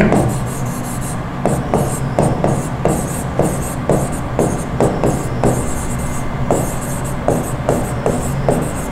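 Pen strokes on the screen of an interactive smart board while a heading is written: a run of short scratchy taps and rubs, about three a second, with a brief pause around six seconds in. A steady low hum runs underneath.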